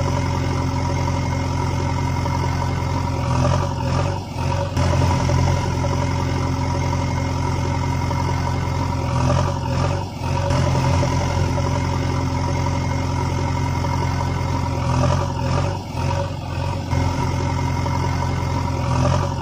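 Steady diesel-style engine idling sound, a low running note that dips briefly about every six seconds, as a looped sound effect does.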